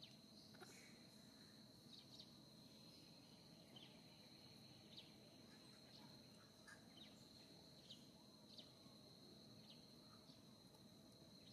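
Near silence: a faint, steady high-pitched insect drone, with short chirps about once a second.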